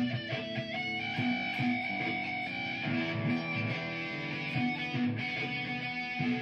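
Electric guitar improvising a lead line with long held notes over a short repeating looped guitar figure.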